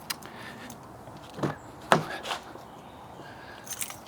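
Pickup truck door being opened: a click at the start, then two heavy thumps about a second and a half in, a lighter knock after them, and small clicks near the end.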